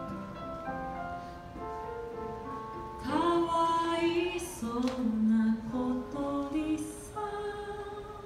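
A woman singing a song to acoustic guitar and keyboard accompaniment. The first few seconds are instrumental with long held notes, and the voice comes in about three seconds in.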